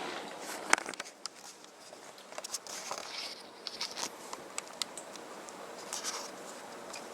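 Scattered sharp clicks and light rustling, the loudest click about three quarters of a second in and a cluster of smaller ones in the middle.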